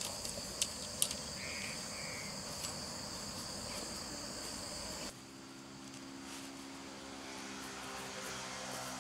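Insects chirring steadily in a high, continuous band, with a few light clicks as the tent poles are handled. About halfway through the insect sound cuts off abruptly and a quieter low, steady hum takes over.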